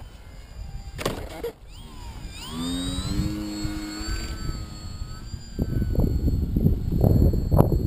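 Model airplane's propeller motor spinning up, a whine rising in pitch and then holding steady for a few seconds. Heavy wind buffeting on the microphone follows, with a sharp click near the end.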